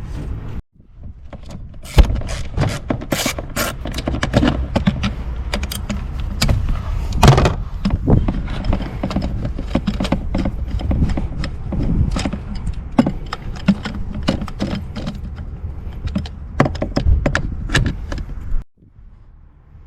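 Irregular metallic clicking and clattering of hand work on a car engine, with no steady rhythm.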